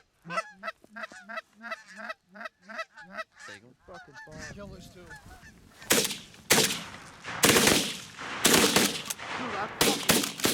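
Canada geese honking in quick succession, about four calls a second, fading after about three seconds. Then, from about six seconds in, a rapid volley of shotgun shots, several in quick succession.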